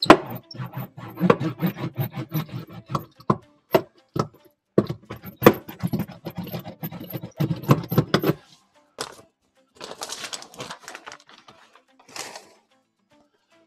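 Metal hand roller knocking and rubbing as it presses butyl sound-deadening mat onto the metal inside a car's rear fender, in quick irregular strokes that stop about eight seconds in. A few short rustles follow.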